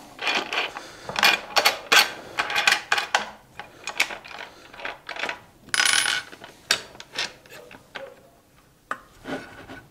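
Aluminium-extrusion drill press fence and its T-bolt hardware being adjusted and locked down on the T-track table: a string of light metal clicks and taps, with a short scrape about six seconds in.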